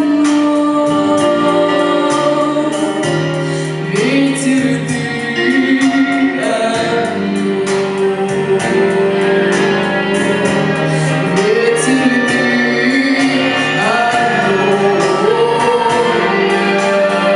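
A pop song: singing over an instrumental backing with a steady drum beat.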